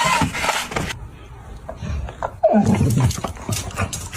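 A cat's yowl: one loud cry about two and a half seconds in that falls steeply in pitch, with scattered short knocks around it.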